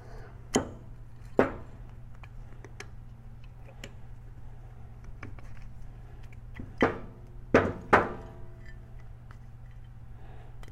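Metal engine parts and hand tools knocking and clinking during removal of the cam plate from a Harley Twin Cam engine: two sharp clinks early, then three close together near the end, the last ringing briefly, over a steady low hum.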